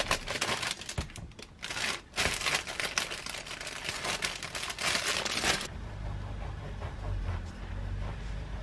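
Clear plastic bread bag crinkling loudly as a cacao bread roll is pulled out of it; it stops about five and a half seconds in. Then a knife saws through the roll on a wooden cutting board, quieter, over a low hum.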